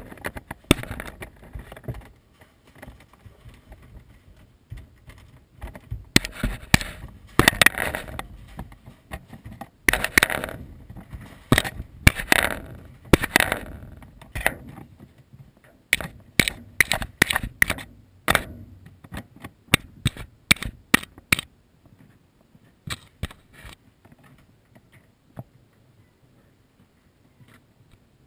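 Kittens pawing, scratching and knocking at a GoPro camera right against its microphone: irregular scrapes, clicks and knocks. They are busiest in the middle, thin to scattered clicks after that and fade almost away near the end.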